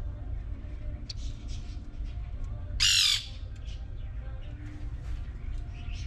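A caged pet bird gives one loud, harsh squawk about three seconds in, lasting under half a second, over a steady low rumble.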